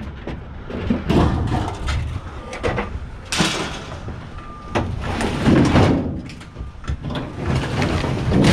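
Scrap metal being handled: irregular knocks and scraping noises, with louder swells about three and five and a half seconds in.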